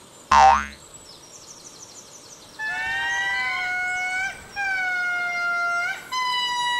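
A springy cartoon boing sound effect, then three long, steady wailing calls of a ring-tailed lemur, each lasting a second or so.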